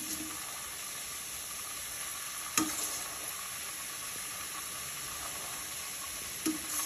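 Mint paste sizzling steadily in an aluminium pressure-cooker pot as cooked rice is spooned in, with three sharp knocks of the spoon against the pot, the loudest about two and a half seconds in.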